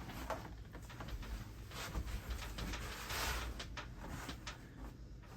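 Faint handling noises: scattered light clicks and rustling, with a brief louder rustle about three seconds in.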